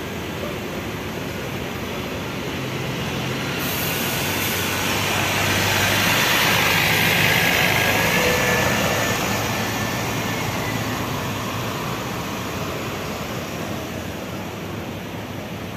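Intercity coach bus pulling away and driving past close by, its diesel engine and tyre noise swelling to a peak about halfway through and then fading.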